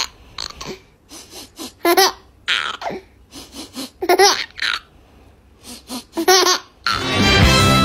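Baby laughing in a string of short bursts of giggles with pauses between them. About a second before the end, loud music cuts in.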